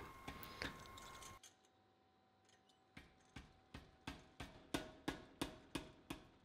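Power hammer striking a red-hot steel bar, drawing a taper on its end. After near silence, faint, evenly spaced blows begin about three seconds in, about three a second, each a sharp knock with a short ring.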